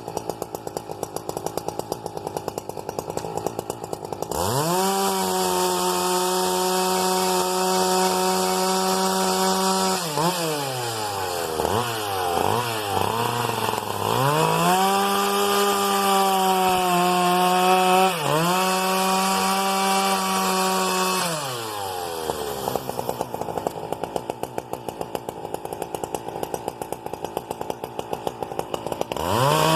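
Husqvarna 395XP two-stroke chainsaw idling with a pulsing beat, then opened up to full throttle at a steady high pitch. Its pitch drops and recovers several times as it loads, typical of bucking firewood. It falls back to idle and revs up again near the end.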